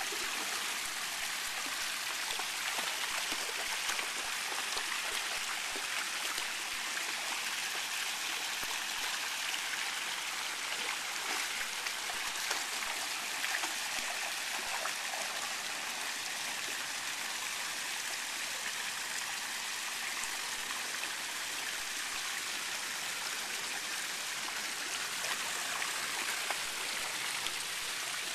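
Steady rush and splatter of fountain jets falling into a shallow stone pool, with a dog's paws sloshing through the water.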